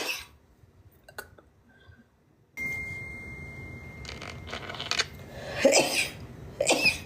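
A woman sneezing in a fit: one sneeze right at the start, then, after a quiet stretch, a few sharp breaths and two loud sneezes near the end, about a second apart.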